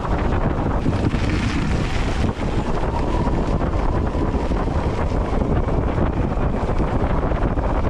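Heavy wind rumble on a moving camera's microphone, mixed with the steady rolling noise of wheels over gravel. A faint steady whine comes in about three seconds in.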